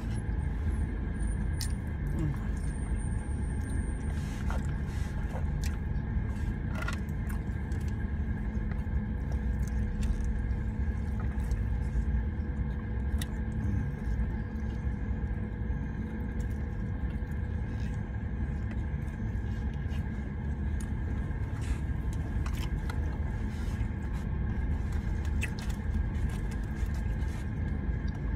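Steady low rumble and hum of a parked car running, heard inside the cabin, with scattered small clicks and rustles of food being handled and eaten.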